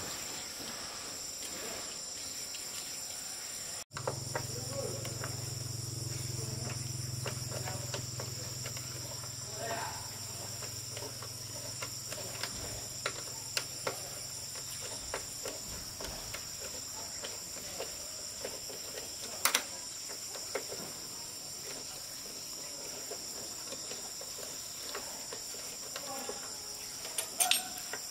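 Steady, high-pitched chirring of insects. A low hum runs underneath from about four seconds in until about halfway through, with scattered light clicks and knocks.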